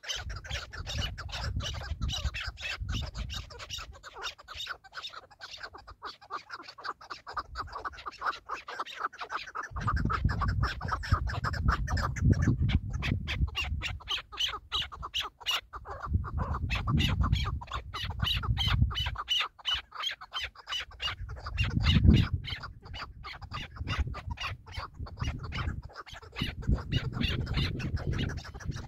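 Chukar partridges calling: a fast, continuous run of repeated clucking notes. A low rumble comes and goes underneath in several stretches.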